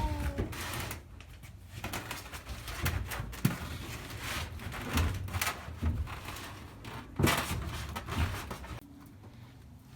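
Irregular knocks, bumps and scraping from hands-on work in a small room, with a sharp knock about three and a half seconds in and a louder one about seven seconds in.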